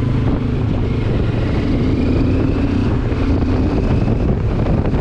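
Benelli TRK 702's parallel-twin engine running steadily at road speed while the motorcycle is ridden, with wind rushing over the microphone.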